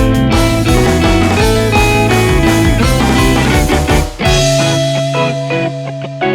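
Background music: guitar-led rock with plucked and strummed notes over a bass line, changing to a held low note with sparser plucked notes about four seconds in.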